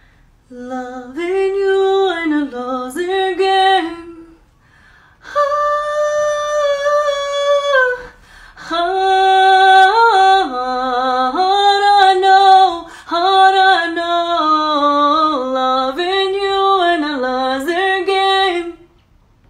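A woman singing unaccompanied in long, held, ornamented notes, in three phrases with short breaks between them.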